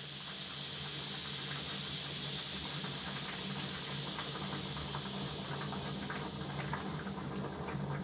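Steam hissing steadily out of an aluminium pressure cooker's vent as its whistle weight is held up to release the pressure by hand. The hiss fades over the last few seconds, with small crackling clicks coming through.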